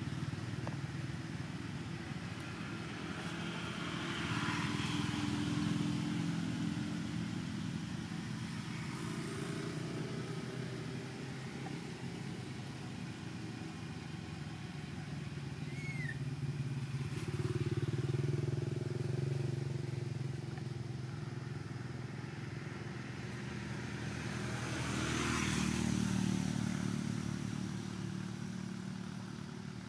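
Motor vehicles passing by: a low engine hum that swells and fades three times, with a rush of passing noise on the swells. A single short, high, falling chirp about halfway through.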